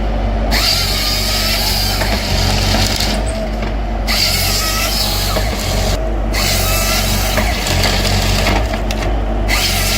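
Heavy forestry machine's engine running steadily, with repeated bursts of hissing about two to three seconds each, breaking off and starting again.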